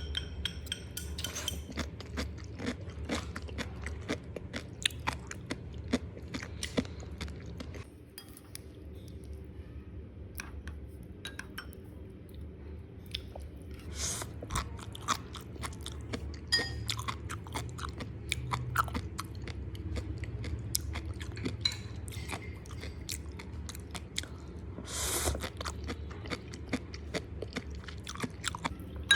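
Close-up chewing and biting of crunchy sea grapes, many small crisp pops and crunches in an irregular run.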